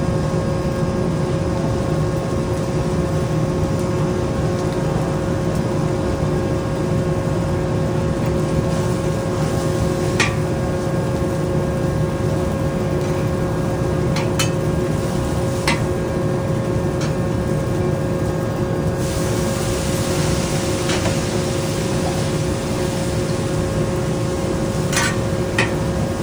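Steady roar of a hawker-stall wok burner with a steady fan hum, under a wok of frying noodles and bean sprouts. A few sharp metal clinks of the ladle against the wok, and about three quarters of the way in a louder sizzling hiss starts suddenly.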